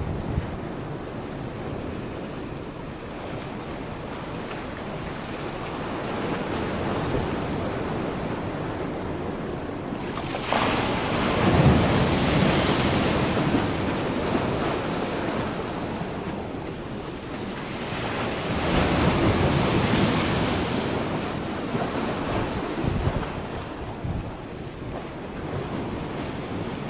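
Sea washing against the shore's concrete tetrapods, mixed with wind buffeting the microphone; the noise swells louder twice, about a third of the way in and again about two-thirds through.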